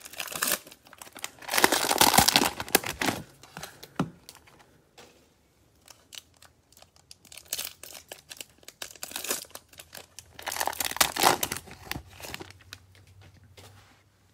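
Cellophane wrapper of a Prizm baseball cello pack crinkling and tearing as it is ripped open by hand, in several bursts, the loudest a couple of seconds in.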